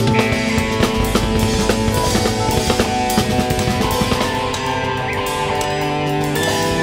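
Instrumental band music: a drum kit played busily, with bass drum and snare, under held melodic notes and bass lines.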